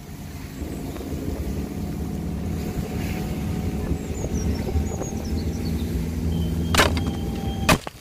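Motorcycle engine running steadily at cruising speed, with wind rumble on the microphone. Two sharp knocks near the end, then the sound cuts off abruptly.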